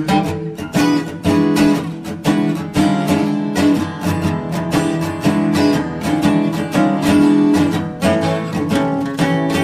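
Background music: acoustic guitar strummed and plucked at a steady pace.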